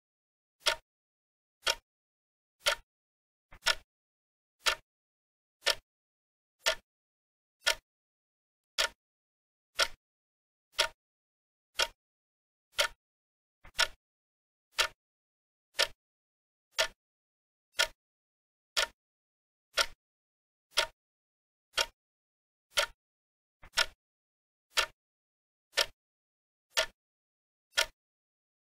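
Countdown-timer clock ticking sound effect: short, crisp ticks at an even pace of about one a second, with silence between them.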